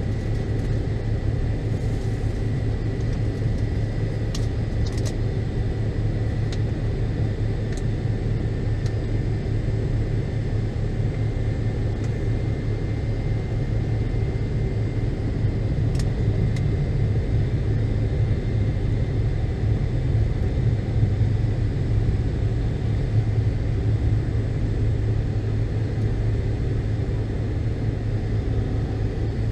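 Steady rumble of an MD-82's rear-mounted Pratt & Whitney JT8D turbofans heard inside the passenger cabin, with a faint steady whine above it.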